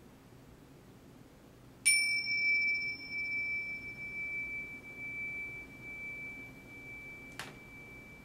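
Tibetan bells struck once: a sudden bright, high ring that holds one clear pitch and slowly fades. A light click follows near the end.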